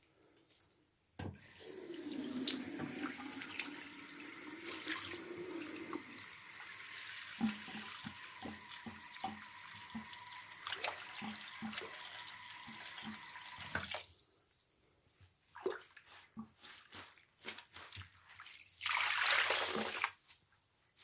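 Water tap running into a sink, starting about a second in and stopping suddenly after about twelve seconds. Scattered drips and small handling sounds follow, then a second short rush of water near the end.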